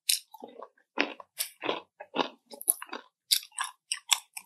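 Close-up chewing of crispy fried chicken skin: a quick run of crisp crunches, about three a second.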